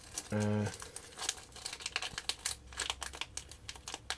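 Small clear plastic parts bag crinkling as fingers open it and dig inside, a quick run of crackles.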